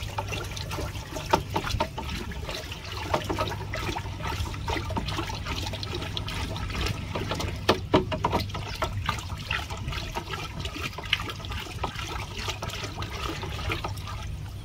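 Water sloshing and swirling in a plastic drum as a PVC pipe stirs concentrated hydroponic fertilizer stock A until it dissolves, with scattered knocks and clicks throughout.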